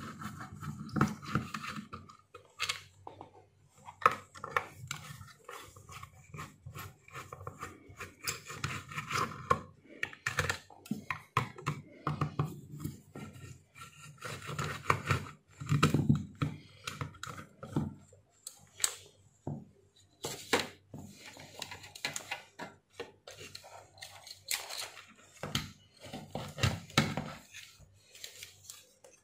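Screwdriver working the screws of a plastic steam iron housing, and the housing being handled and lifted off its metal soleplate: many irregular clicks, scrapes and rattles of hard plastic and metal.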